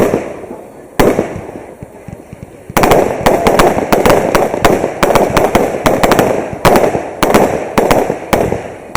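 Fireworks display: single bursts at the start and about a second in, each fading away. From about three seconds in comes a rapid barrage of sharp reports, several a second, which stops shortly before the end.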